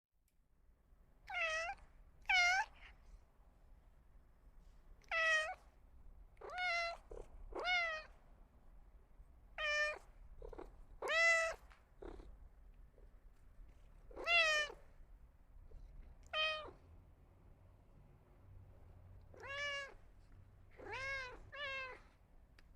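Cat meowing repeatedly: about a dozen short meows, each rising then falling in pitch, with pauses of a second or more between most of them and two pairs close together.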